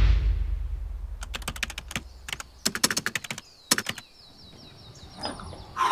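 Video-edit sound effects: a low whooshing swell that peaks at the start and fades over the first second, then about three seconds of rapid keyboard-typing clicks in short bursts.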